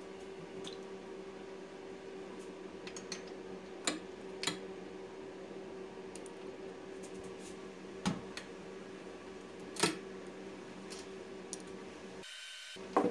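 A few isolated sharp metallic clicks and taps from a ratchet and spark plug socket working the spark plug out of a trash pump's small OHV engine, over a steady low hum.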